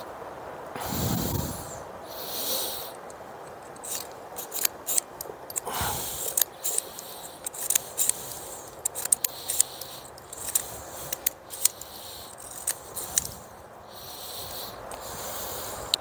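Small, sharp metallic clicks from a single-action .22 revolver being handled after firing: the cylinder is turned and the ejector rod worked through the loading gate, with light rustling and breathy noise on the mic early on.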